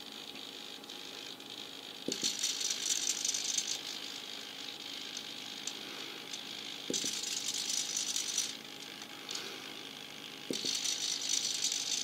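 Cheap Turnigy hobby servos slowly throwing model railway points: three separate bursts of buzzing gear noise, each starting with a click and lasting about a second and a half.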